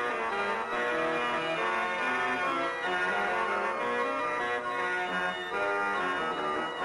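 The restored 1777 Van Peteghem pipe organ playing a busy passage of many quick notes, several voices at once.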